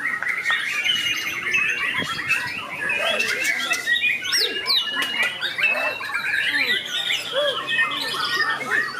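Many white-rumped shamas singing at once, a dense, continuous overlap of quick whistled phrases and chatter. Fainter people's voices run low underneath.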